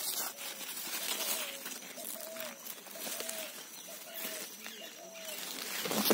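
A dove cooing in a run of short repeated notes, with leaves and vines rustling against the phone, loudest near the end.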